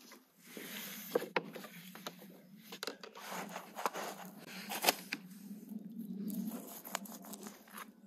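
Food-preparation handling sounds: a wooden spatula scraping and clicking against an enamel bowl as a crumbly filling is mixed, then rustling and scraping as a large stuffed flatbread is handled on a saj griddle. Scattered sharp clicks, the loudest a little before five seconds in.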